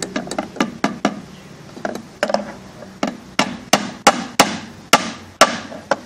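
Hammer driving a nail through a metal gate strip into a beehive box: a run of about fifteen sharp strikes, roughly three a second, with a short pause a little after the first second and heavier blows in the second half.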